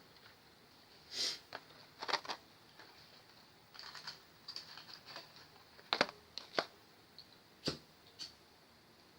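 Scattered light clicks and taps at an irregular pace, with the sharpest about six seconds in. It is the handling of plastic and metal parts and small tools while taking a flat-screen TV apart.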